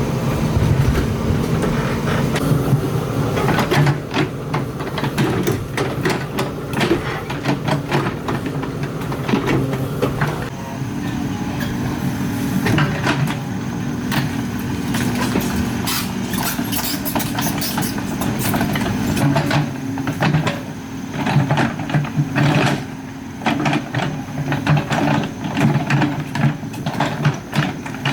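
Excavator's diesel engine running steadily while it digs, with many irregular knocks and clatters of the machine working ground and rock.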